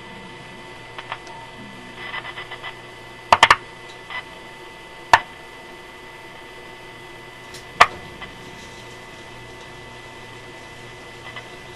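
Irregular sharp clicks and taps of small tools and meter probes working on a vacuum tube radio's chassis and socket pins, over a steady faint hum. The loudest is a quick triple click about three and a half seconds in, with single clicks near five and eight seconds.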